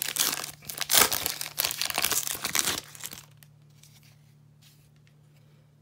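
Foil wrapper of a 2018 Donruss football card pack crinkling and tearing open by hand in quick crackles, stopping a little past halfway.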